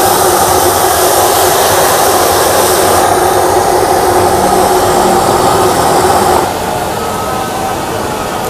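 Steady, loud roaring noise that changes abruptly about three seconds in and drops in level about six and a half seconds in.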